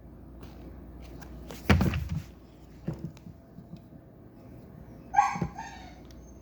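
A pet dog barking a few times: one loud bark about two seconds in, a softer one a second later, and a higher, yelping bark with a falling tail near the end.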